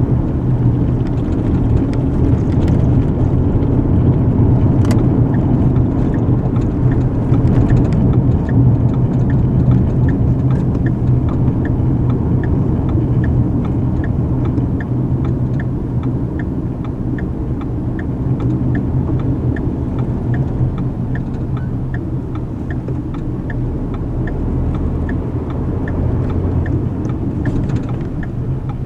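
Inside a moving car: steady engine and road rumble, with a turn signal ticking evenly from about six seconds in.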